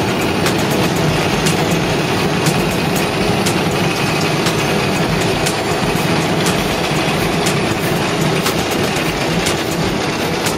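Asphalt paver running steadily, its diesel engine and machinery making a loud, constant mechanical noise. Short sharp clicks and scrapes come through it at irregular moments.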